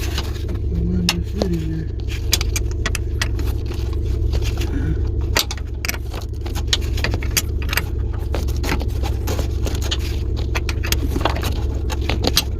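Irregular metallic clicks and clinks of hand tools, a socket wrench working on the air-bag quick-connect fittings, over a steady low rumble.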